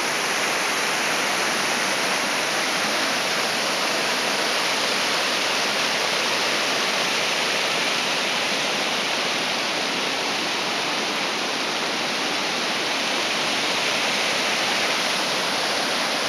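River water rushing steadily over a small weir and shallow riffles: a constant, even rush of white water.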